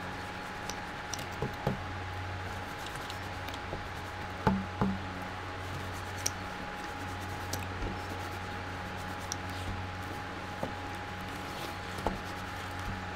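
Gloved hands rubbing a small circuit board with a cloth towel to wipe off paint thinner, with scattered small knocks and clicks as the board shifts on the table, two louder knocks about four and a half seconds in. A steady low hum runs underneath.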